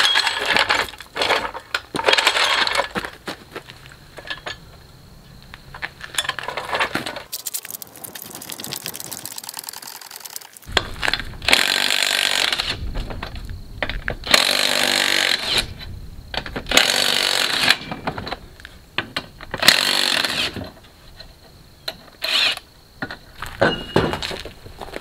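Cordless impact wrench hammering on the wheel's lug nuts in several bursts of one to two seconds, with clicks and rattles of the jack and wheel work around them.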